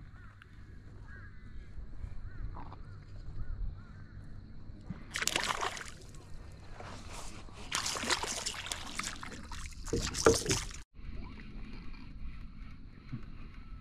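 Kayak paddle strokes splashing and sloshing water: about four loud splashes in the middle, then a sudden stop. Low water lapping around them.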